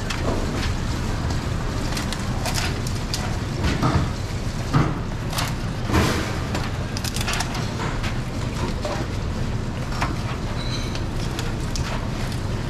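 Steady low background hum with scattered light clicks and knocks from clear plastic food containers and fruit being handled.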